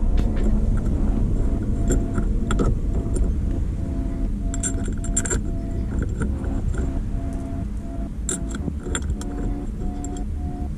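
Background music with repeating melody notes, with a few sharp metallic clinks from hand tools and hardware as the steering hub adapter is bolted on.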